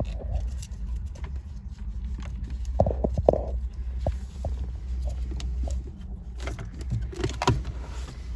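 Scattered clicks and knocks of a plastic trim cover being handled and pried off around the car's ignition wiring, a little louder about three seconds in and again near the end, over a steady low rumble.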